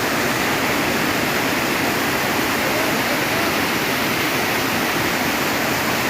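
Steady rushing of a fast-flowing river, an even roar of water that does not let up.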